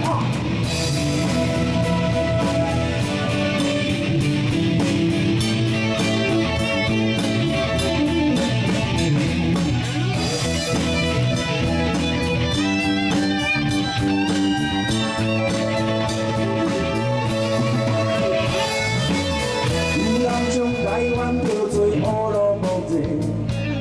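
Live rock band playing an instrumental break: guitar over a steady drum kit beat and bass.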